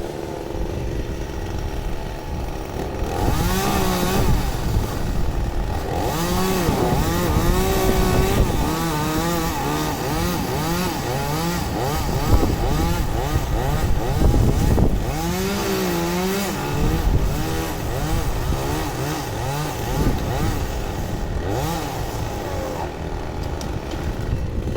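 Two-stroke chainsaw running and being revved, its pitch rising and falling again and again.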